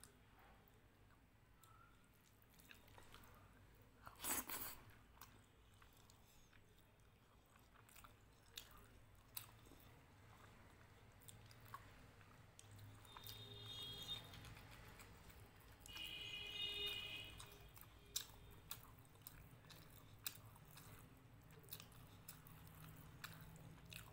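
Close-up sounds of eating rice and curry by hand: quiet chewing with small wet clicks and crunches, and one louder crunch about four seconds in. Two short high-pitched tones sound around the middle.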